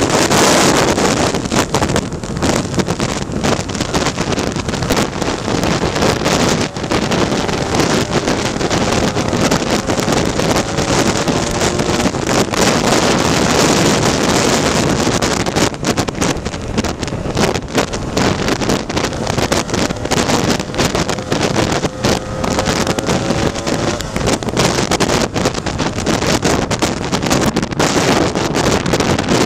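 Wind buffeting hard on the microphone of a Lambretta scooter riding at road speed, with its two-stroke engine running underneath, its pitch slowly rising a couple of times.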